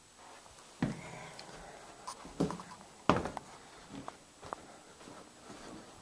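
A few irregular knocks and clicks of someone walking through a room with a handheld camera: footsteps and handling bumps, the loudest about three seconds in.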